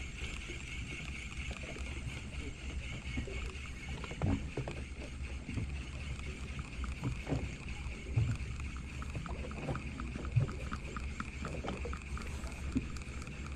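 Steady ambient noise aboard a small boat at sea: a low rumble with a steady hiss over it, broken by a few soft knocks, the loudest about four, eight and ten seconds in.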